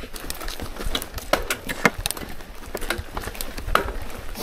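Rocky Mountain mountain bike rattling down rough singletrack: irregular clicks and knocks as the wheels, suspension and drivetrain clatter over roots and rocks, over a low rumble of tyres on dirt.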